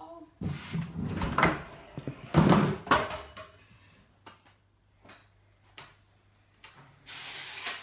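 Stunt scooter clattering on a wooden ramp and concrete floor, with one loud thud about two and a half seconds in, then a few scattered light knocks.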